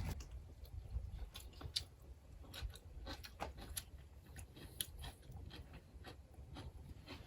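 Faint, close chewing and biting of tender boiled pork, with scattered small clicks and crunches.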